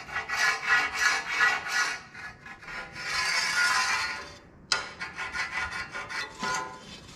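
A marker scraping across the face of a rusty steel plate, drawing layout lines along a straightedge in quick repeated strokes, with one longer continuous scrape about three seconds in.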